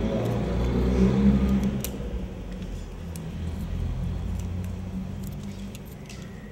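Low rumble of a passing motor vehicle, strongest for the first two seconds or so and then easing off, with scattered light clicks and taps of small hand tools on film strips at a table.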